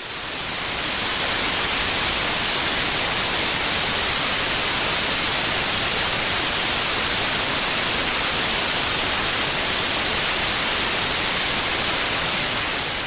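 Steady white-noise static hiss, like the snow of an off-air analogue television. It swells up over the first second or so and begins to fade near the end.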